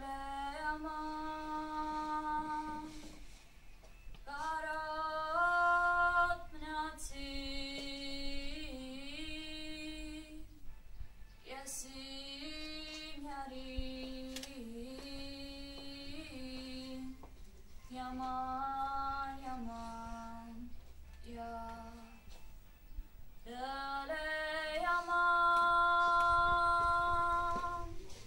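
A girl singing solo and unaccompanied, holding long steady notes in phrases a few seconds long, with short breaks for breath between them.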